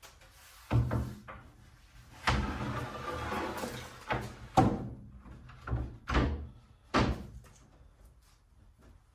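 A wooden toolbox top being set onto a toolbox: a knock, then a scraping slide for a second or two, then several more knocks as it is shifted and settled into place.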